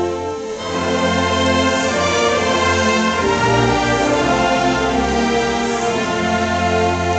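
High school choir singing with a band accompaniment that includes tubas and other brass, playing held chords over a moving bass line.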